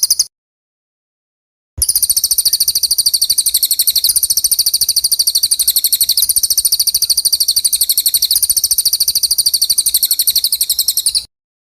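Songbird trill used as murai batu tutoring ('isian') audio: a very fast, high-pitched run of rapidly repeated notes, sounding for about nine seconds after a brief opening snatch and stopping abruptly, with dead silence between the edited pieces.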